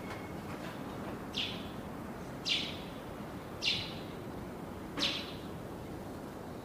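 A bird repeating a short, downward-sweeping chirp four times, a little over a second apart, over steady background noise.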